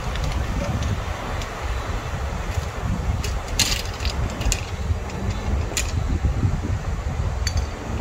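Strong wind buffeting the microphone, a loud, uneven low rumble, with a few sharp clicks around the middle and near the end.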